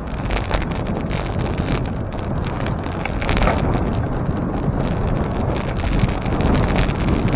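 Wind buffeting the microphone of a moving bicycle: a steady rushing noise that never lets up.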